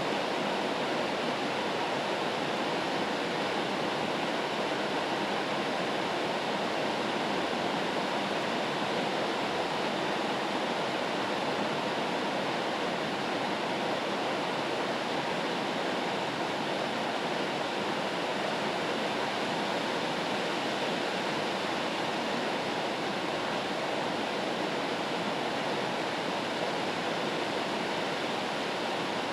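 Rain white noise: an even, unbroken hiss with no individual drops or other events standing out.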